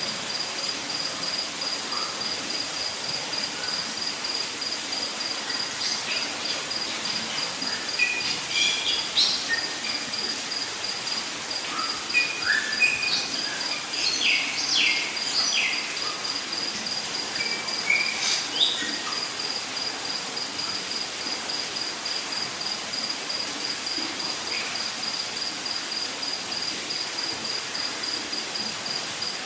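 An insect's high, evenly pulsed trill runs on steadily over a soft hiss. Birds call with short chirps and whistles from about 8 to 19 seconds in.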